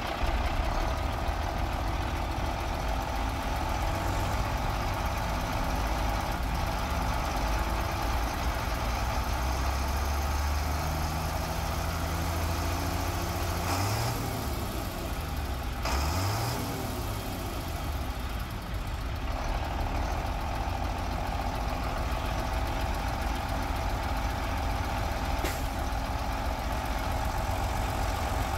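Diesel engine of a 1991 International 2554 dump truck idling steadily, heard close up at the open engine bay, with two short rises in engine pitch about halfway through.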